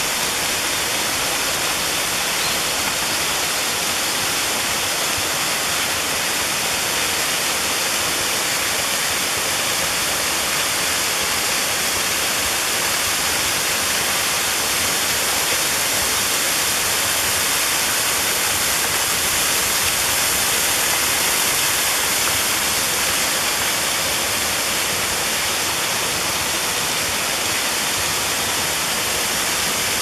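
A waterfall with a 16-metre drop, water falling down a rock face in a steady, unbroken rush with a strong hiss.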